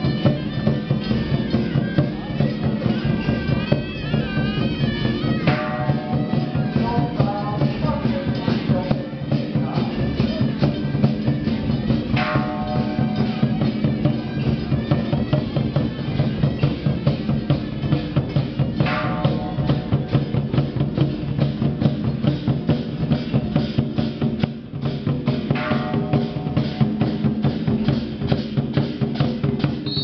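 Temple-procession drum troupe playing a fast, steady percussion beat, with a ringing tone that comes back about every six or seven seconds.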